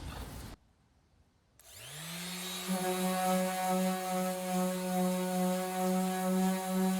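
Electric sander starting up about two seconds in, its motor whine rising in pitch and then running at a steady speed while sanding body filler on the fiberglass.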